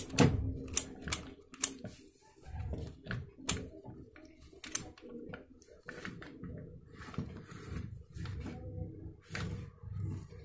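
Irregular clicks and knocks of the plastic housing of a Bosch GWS 600 angle grinder being handled and turned over in the hands, with a new push switch just fitted.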